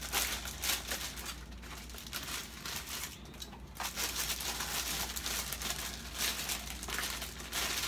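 Plastic packaging bags crinkling and rustling on and off as clothing and sandals are handled and rummaged through.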